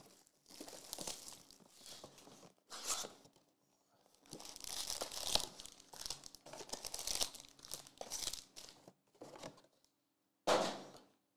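Hands opening a Panini Prizm basketball hobby box: its wrapping and foil packs crinkling and tearing in irregular rustling bursts.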